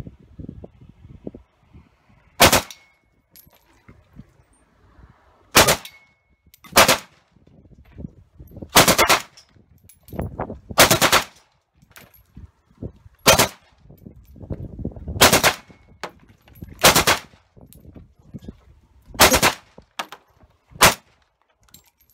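AK-pattern rifle firing on full automatic in about ten short bursts, each under half a second long, one to three seconds apart.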